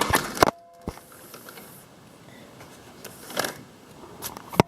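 Single-hung window sash being worked in its frame: a clatter at the start, a brief squeak, a scrape about three and a half seconds in, and a sharp knock near the end. The sash's balance tension end is loose inside the frame, so the sash is hard to raise and won't stay up.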